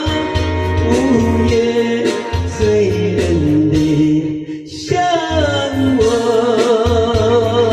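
A song: a sung melody over a steady bass and beat, with a brief drop in level about four and a half seconds in.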